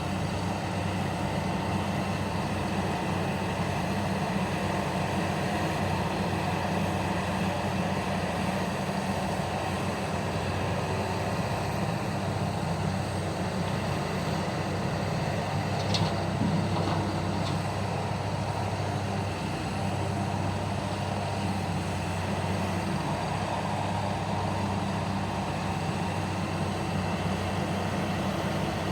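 Heavy diesel engines of mining machinery running steadily, with a deep, even drone. A short sharp knock comes about halfway through, and a fainter one a moment later.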